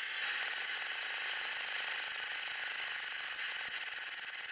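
Rapid, light hammer taps on a steel anvil as a thin hot steel rod is drawn out, heard as a fast run of small ticks over a steady hiss.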